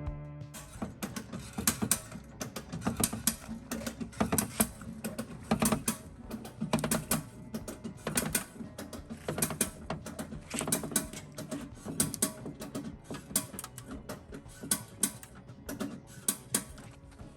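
Irregular sharp metallic clicks and knocks, about two or three a second, from work on a car's damaged front fender sheet metal as it is pulled out.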